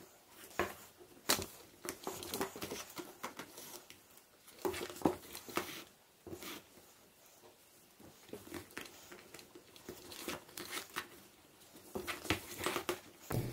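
Hands handling a leather bag flap and a crocheted cord bag while stitching the flap on with a bodkin and cotton cord: irregular rustles, crinkles and scrapes, quieter for a couple of seconds in the middle.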